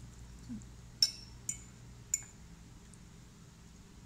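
Metal fork clinking against a ceramic dinner plate three times, starting about a second in and about half a second apart, each with a brief bright ring.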